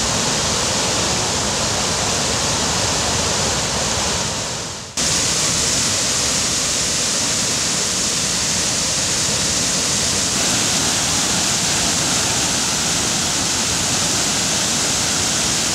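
Steady rush of river water pouring over low stepped weirs. It dips and cuts back in abruptly about five seconds in.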